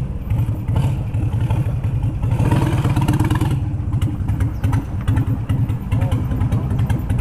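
Harley-Davidson V-twin engine running at low speed with a fast, low pulse, swelling louder briefly about two and a half seconds in.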